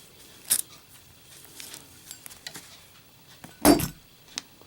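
A lit Zippo lighter with a steel insert dropped in a drop test, landing with a metallic clatter about three and a half seconds in and bouncing with a small click just after; a few faint clicks come before it.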